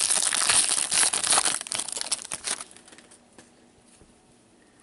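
Foil wrapper of an O-Pee-Chee Platinum hockey card pack crinkling and crackling as gloved hands work the pack open. The crinkling stops about two and a half seconds in, leaving only faint handling sounds.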